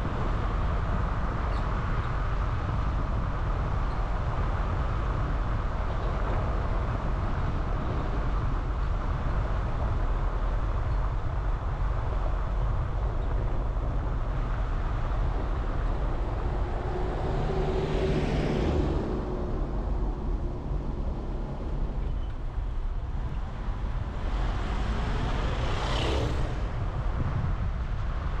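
Car on the move: steady engine and road rumble. It swells and fades twice, past the middle and near the end, as other vehicles pass.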